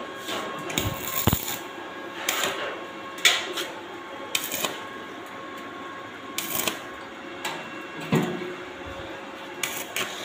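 Stick (arc) welding on a sheet-metal box: the arc crackles in short, irregular bursts, several over a few seconds.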